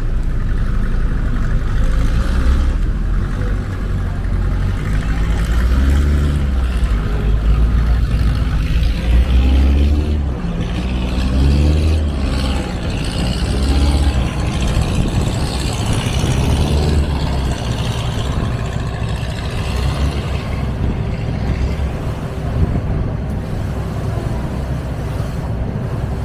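A tour boat's engine running steadily under way: a continuous low rumble with a haze of water and air noise over it.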